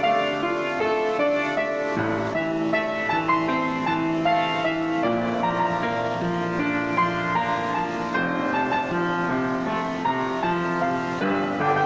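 Piano music: a melody played over sustained chords.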